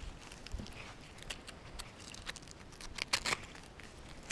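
Handling noise from a hand-held GoPro camera: scattered light clicks and scrapes against its housing, with a sharper cluster of clicks about three seconds in.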